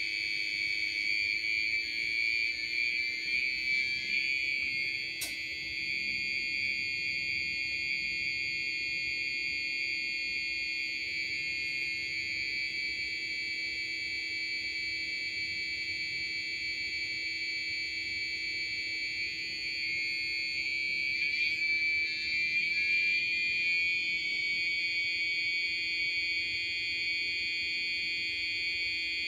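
Small beeper driven by a 555 timer oscillator, giving a steady high-pitched electronic tone. Its pitch wavers briefly about twenty seconds in as the frequency potentiometer is turned, and there is a single click about five seconds in.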